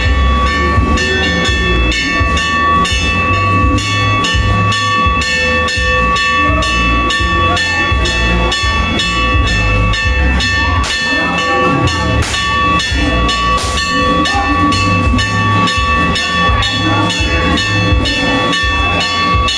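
Temple ritual percussion played in a fast, steady beat of metallic strikes, about four to five a second, over a pulsing drum-like thump, with ringing tones held throughout.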